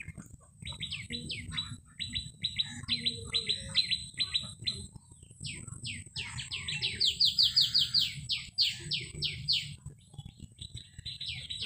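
A songbird giving rapid series of short, down-slurred chirps, several a second, in runs of a few seconds with short breaks between them.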